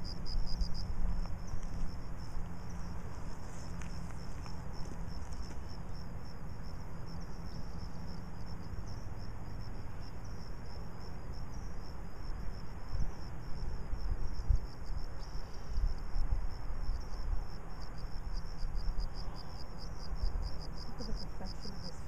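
Crickets chirping in a steady, rapid pulse, with irregular low rumbling thumps underneath.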